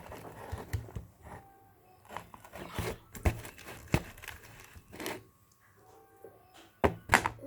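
A spatula working sticky slime in a container: irregular scraping and squishing with scattered clicks and knocks of the spatula against the container, the sharpest two knocks near the end.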